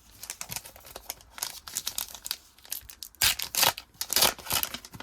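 Foil trading-card pack wrapper being torn open and crinkled by hand: a run of crackles, loudest about three seconds in.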